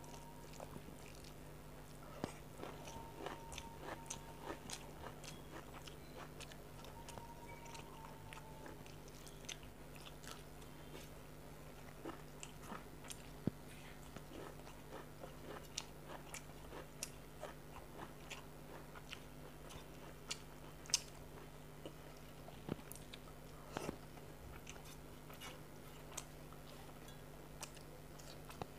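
Close-miked eating sounds: chewing and lip smacks as rice and curry are eaten by hand, with irregular sharp clicks and soft scrapes of fingers mixing rice on a steel plate. A steady low hum runs underneath.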